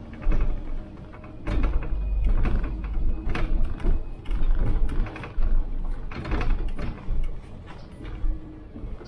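City bus on the move, heard from the driver's cab: a low rumble from the engine and road with frequent irregular rattles and knocks from the body and fittings.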